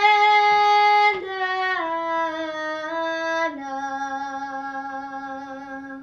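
A girl singing a traditional Serbian folk song unaccompanied. She holds long notes that step down in pitch, ending on a low held note that fades away.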